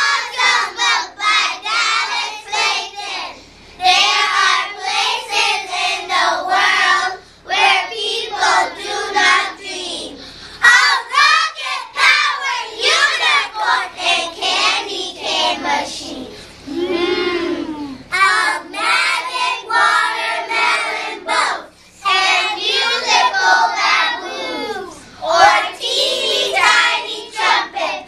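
A group of young children singing together in unison, without instruments, in short phrases with brief pauses between lines.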